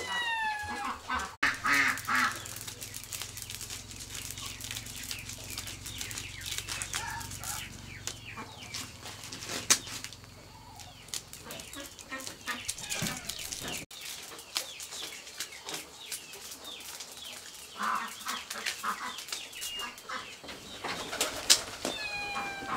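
Dried corn kernels clicking and pattering into a woven bamboo basket as cobs are shelled by hand, with a chicken calling a few times in the background.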